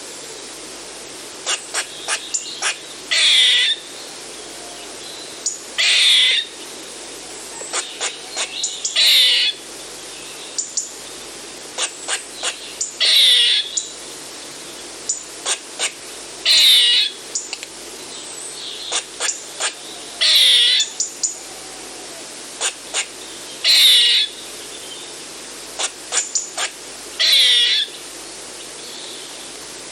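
Eastern gray squirrel alarm calling: a harsh, raspy call repeated about every three to four seconds, with quick runs of short sharp chucks in between.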